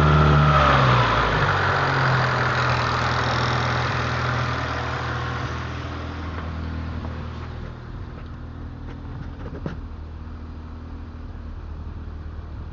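Honda CRX's B18 four-cylinder engine (B18A1 block, B1 head) dropping from a rev back to idle about a second in, then idling steadily and growing gradually quieter. A short click sounds near the end.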